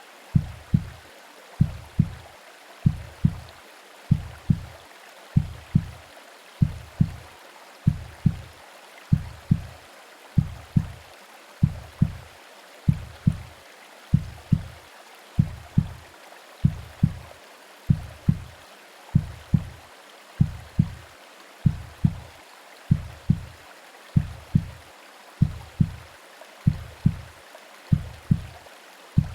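Womb-sound heartbeat: muffled, deep lub-dub thumps in a slow, even rhythm, about one pair every second and a third, over a steady white-noise hiss like rain.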